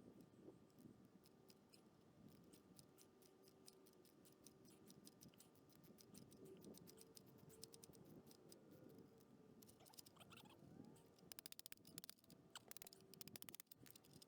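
Near silence: faint quick clicks and small scratchy sounds over a low steady hum, growing denser about eleven seconds in.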